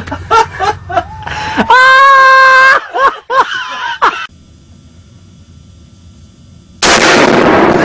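Men laughing in short bursts, then a loud shout held on one pitch for about a second, followed by shouted words. Near the end comes a sudden, very loud rifle shot in the small indoor range, the noise staying loud after it.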